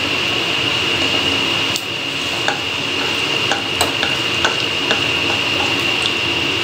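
Panch phoron seeds sizzling in hot oil in a nonstick kadhai, with a spatula stirring them and clicking against the pan about half a dozen times. A steady high-pitched whine runs under it.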